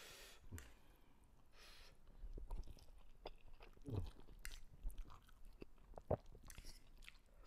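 Close-up chewing of a mouthful of fried instant noodles, quiet and wet with small mouth clicks, a few louder ones about four and six seconds in.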